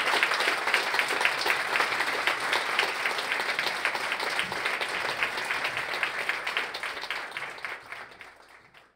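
Audience applauding, a dense patter of many hands that fades away over the last few seconds.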